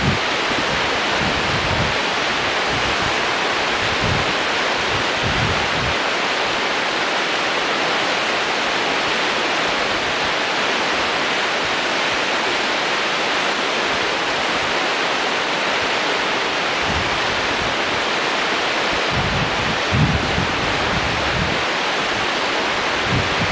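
Rio Grande rapids rushing steadily below the hanging camera, with wind buffeting the microphone in low gusts in the first few seconds and again near the end.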